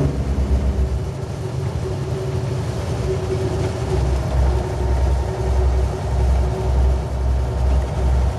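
Peterbilt truck's diesel engine and road noise heard from inside the cab while driving, a steady low rumble. From about four seconds in a low, even pulsing comes in under it.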